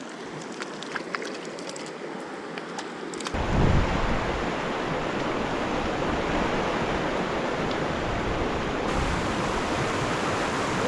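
Rushing river water, a steady noise that jumps abruptly much louder about three seconds in. A few faint clicks come before the jump.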